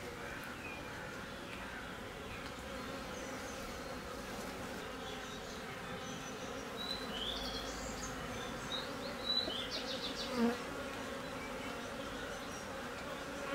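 Honeybees of an open hive humming steadily as a brood frame covered in bees is lifted out. A few light knocks from the frame being handled come about two-thirds of the way through.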